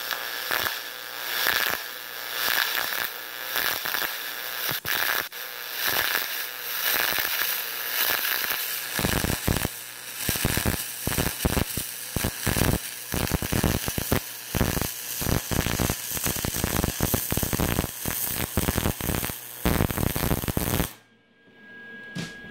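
MIG welding arc on aluminum from a Lincoln Magnum 100SG spool gun: a continuous crackle that sounds good for a well-set arc. The crackle grows into heavier popping about nine seconds in, and stops abruptly a second or so before the end when the trigger is released.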